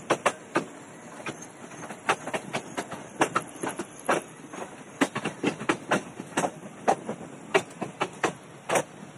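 Train wheels clattering over the rail joints in a rapid, irregular run of sharp knocks, over the steady rolling noise of a moving railway coach, heard from the coach's open doorway.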